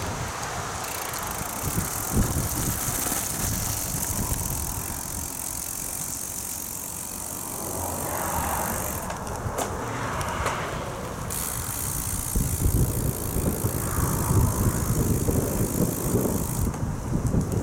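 Wind buffeting the microphone during a bicycle ride, with the bicycle rolling along an asphalt path. The rumble comes and goes unevenly, and the hiss drops away for a couple of seconds around the middle and again near the end.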